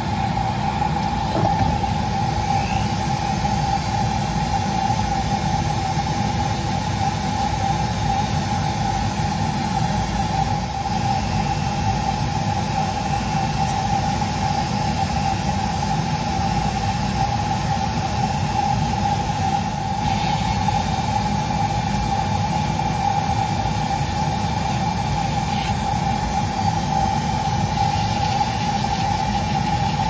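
Flex-shaft rotary carving tool running steadily with a constant high whine, its small bit grinding into a basswood hummingbird wing.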